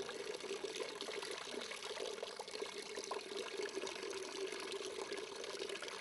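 Water pouring and trickling steadily into the small plastic basin of a tabletop rainwater-harvesting model, around a T-shaped recharge pipe, with a steady hum underneath.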